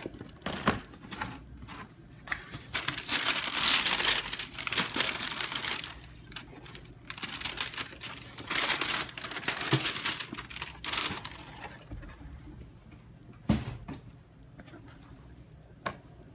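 Tissue paper rustling and crinkling inside a cardboard shoebox as the wrapping is pulled back, in two long spells. Several sharp knocks of the box and its lid come near the start, and two more come near the end as a sneaker is set down.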